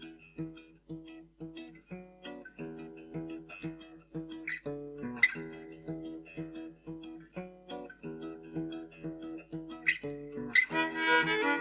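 Acoustic guitar playing an unaccompanied intro of plucked and strummed chords for a set of Irish traditional tunes. Near the end the melody instruments join in, much louder.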